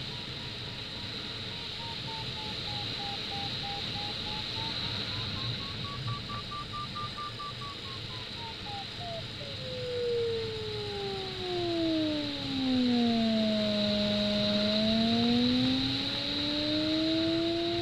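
Glider variometer tone: quick beeps at a high pitch that wavers up and down, then, about nine seconds in, a continuous tone that slides down low and climbs partway back, over steady cockpit air hiss. By the usual vario convention, beeping means the glider is climbing in lift and the steady falling tone means it is sinking.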